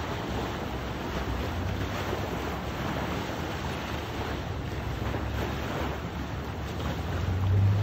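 Wake waves from a passing tugboat washing onto a sandy shore, with wind on the microphone. Under it the tug's engine runs as a low steady drone that grows louder near the end.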